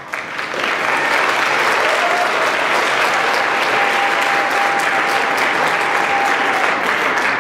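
Audience applauding at the end of a performance, swelling up at the start and holding steady, with one high steady tone held through the middle.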